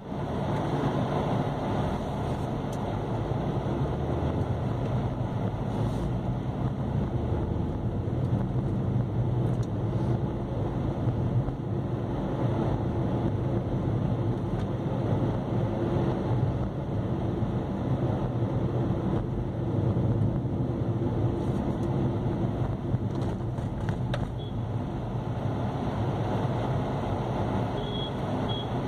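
Steady engine hum and road noise of a vehicle driving slowly along a rough road, heard from inside it.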